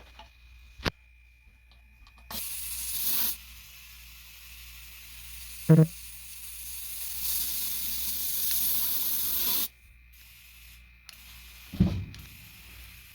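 Compressed air hissing into a tire through an air chuck on the valve stem, in two bursts: one of about a second, then a longer one that builds for several seconds before cutting off sharply. Short clicks, a brief loud pitched blip midway and a thump come between the bursts.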